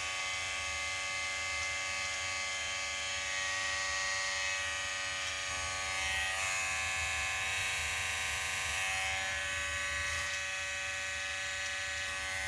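Corded electric hair clippers, guard removed, running with a steady buzz as they trim a sideburn close. The tone shifts slightly in the middle, about four to ten seconds in.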